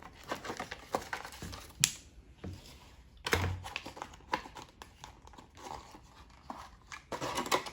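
Packaging being opened by hand: irregular crinkling, rustling and tearing, with a sharp snap a little under two seconds in and louder rustling bursts around the middle and near the end.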